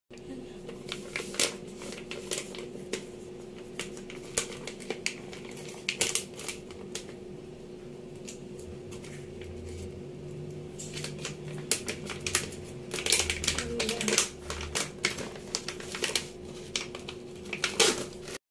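Crinkling and rustling of a plastic soap pouch being handled and opened, with the bar of soap slid out near the end, as many quick irregular clicks. A steady hum runs underneath.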